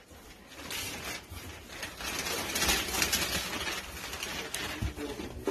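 Wrapping paper and tissue paper rustling and crinkling as a gift box is pulled out of its wrapping, loudest about halfway through.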